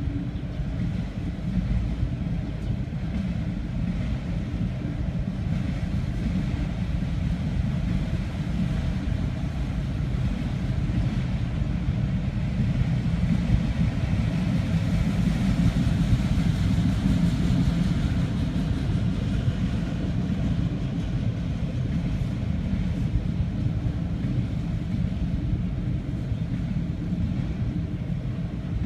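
Freight train of autorack cars rolling past: a steady low rumble of wheels on rail that swells a little about halfway through.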